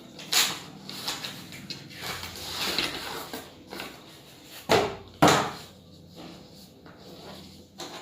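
Handling of a phone's cardboard box and packaging: sliding and rustling with several sharp knocks, the loudest two about five seconds in, half a second apart.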